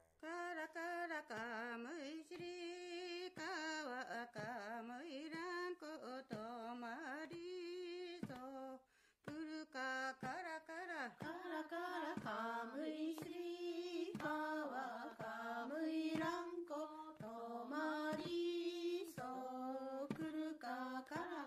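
A single voice singing an unaccompanied melody, its pitch wavering and bending through long phrases. There are short breaks between phrases and a brief pause about nine seconds in.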